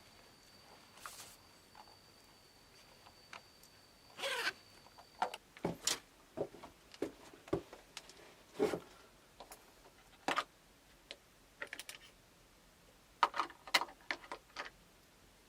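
A series of short, irregular clicks, taps and scrapes, like small things being handled, with a faint steady high whine that stops about five seconds in.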